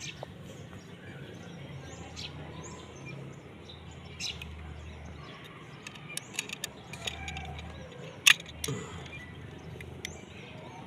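Scattered small, sharp clicks from hand tools cutting and stripping a fiber optic drop cable, the loudest about eight seconds in. Birds chirp faintly in the background.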